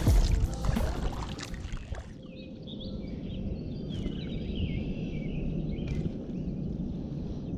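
Birdsong, a string of short sweeping chirps, over a low steady rumble of wind and water, with two brief clicks about four and six seconds in. A louder, denser sound fades out over the first two seconds.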